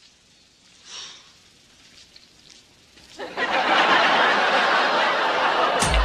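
Sitcom studio audience laughing, starting suddenly and loudly about three seconds in after a quiet stretch, and holding as a dense wash of sound.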